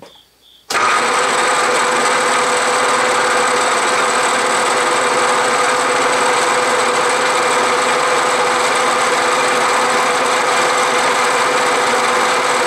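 Milling machine running at medium speed with a Niagara end mill cutting across the bottom of a lead casting: a loud, steady machining whine that starts abruptly just under a second in. The cutter is not loading up with lead and leaves a smooth finish.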